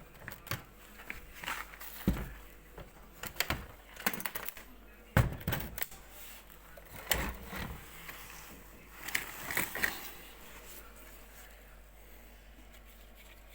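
Irregular knocks, thuds and clicks of things being handled, with the loudest knocks about two and five seconds in and a cluster of clatter near the end.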